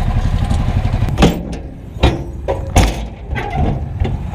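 Motorcycle engine idling for about a second, then a few sharp knocks spaced under a second apart.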